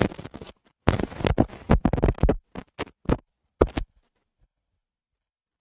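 Close, loud rustling, crackling and knocking of a headset microphone being handled, in irregular bursts. The sound cuts off to dead silence about four seconds in.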